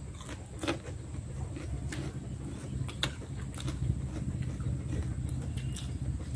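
Scattered small clicks and crackles of grilled, crisp-skinned armored catfish being torn apart by hand and eaten, over a steady low hum.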